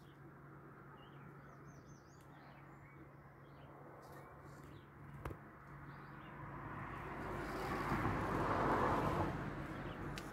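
Birds chirping faintly over a steady low hum of outdoor ambience. About six seconds in, a broad rushing noise swells up, becomes the loudest sound, then eases off near the end.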